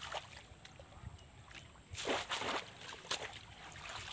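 Shallow muddy water splashing and sloshing as a bamboo fish trap is pulled up out of a flooded rice field, with a burst of splashing about halfway through and water streaming off the trap near the end.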